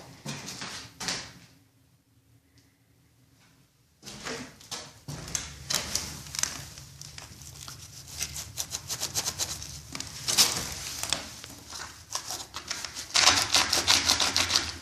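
Wooden floor on joists creaking, a dense run of crackling creaks and clicks with a quiet break of about two seconds near the start, loudest near the end. The creaking comes from dried-out shims under the joists.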